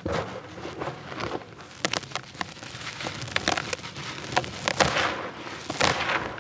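Dry stony bricks being crumbled in a tub: irregular crisp cracks and snaps with soft, crunchy crumbling between them.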